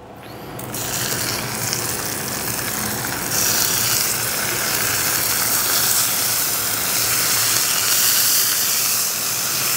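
Strips of homemade bacon sizzling on a hot, butter-greased flat-top griddle. The sizzle starts as the first strips go down and grows louder about three seconds in as more strips are laid on, then holds steady.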